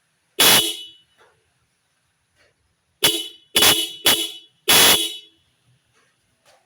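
Newly fitted pair of snail (spiral) car horns on a Toyota Camry XV30 being tested, wired to the original socket without a relay. One short honk, then after a pause four short honks in quick succession.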